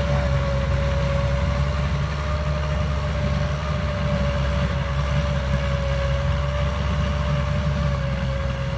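Massey Ferguson 290 tractor's diesel engine running steadily under load while tilling dry soil: an even low drone with a steady whine above it.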